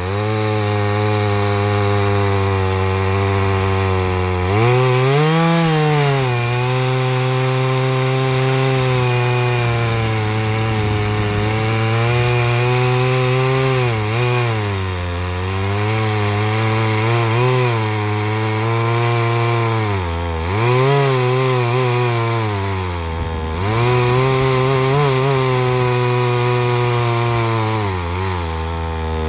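Large chainsaw, a knockoff of a Stihl 066, running flat out in an Alaskan chainsaw mill as it rips a slab lengthwise from an ash log. Its engine note sags several times as the chain labours in the hard ash, with a brief rise in pitch about five seconds in.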